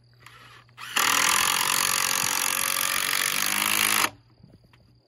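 Cordless power driver sinking a screw into the wooden brace of an arbor leg. A short burst comes just under a second in, then a loud, steady run of about three seconds that stops abruptly as the screw seats.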